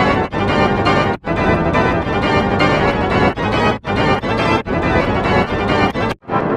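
Loud, digitally processed organ-like music made of dense sustained chords, chopped by brief cut-outs at uneven intervals.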